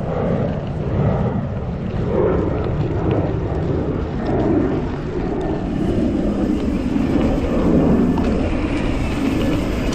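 Mountain bike being ridden along a dirt trail: a steady rushing rumble of wind over the microphone, with tyre noise on dirt.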